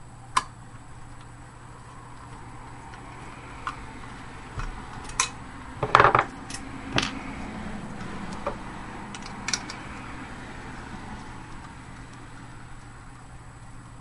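Scattered metallic clicks and clinks of a hard drive and its sheet-metal drive bracket being handled, with screws and a screwdriver coming out and being set down on a wooden table. The loudest clatter comes about six seconds in, over a steady low hum.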